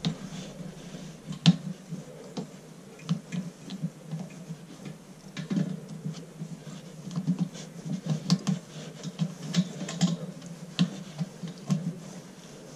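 Irregular small clicks and taps of hands handling an air compressor's plastic pressure switch and its wires, with one sharper click about a second and a half in.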